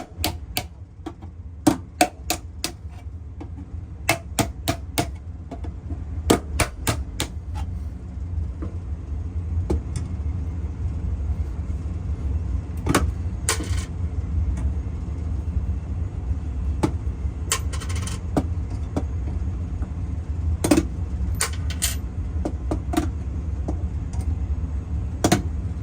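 Sharp clicks and knocks in irregular clusters, with a couple of brief scrapes, from cables being worked into a fire alarm control panel cabinet, over a steady low hum.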